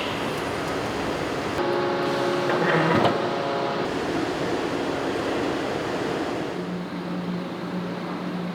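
Hot-forging factory machinery running with a steady din. A pitched, horn-like machine tone sounds for about two seconds, with a sharp clank about three seconds in. A steady low hum sets in near the end.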